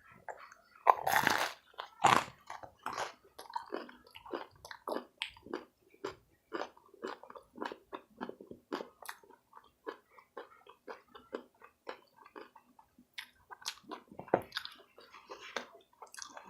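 Person biting and chewing crunchy Totino's stuffed nachos: two loud crunching bites about one and two seconds in, then steady chewing at about two to three chews a second, with another louder bite near the end.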